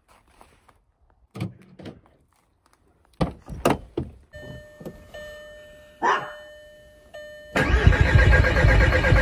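Car door knocks and thunks, then a Volkswagen Jetta's 1.9 TDI (ALH) four-cylinder turbo diesel cold-starts about seven and a half seconds in, catching abruptly and running loudly. Faint steady electronic tones sound in the seconds before it starts.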